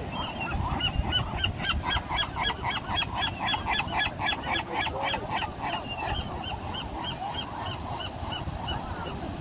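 Gulls calling: a fast run of short, repeated, high calls, about five a second, busiest in the first half and thinning out toward the end.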